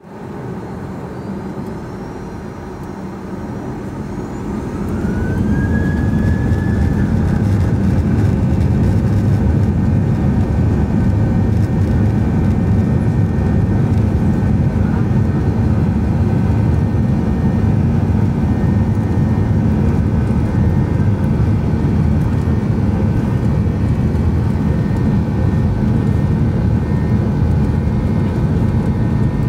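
Boeing 737-800's CFM56-7B turbofan engines spooling up to takeoff power, heard from inside the cabin: rising whines in the first few seconds, then the noise swells about five seconds in and settles into a loud, steady roar with a low rumble as the jet accelerates down the runway.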